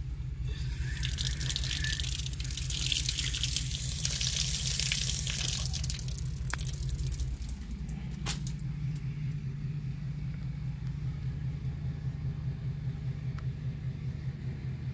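A steady low hum throughout, with a loud hiss of running or spraying water starting about a second in and stopping about seven seconds in.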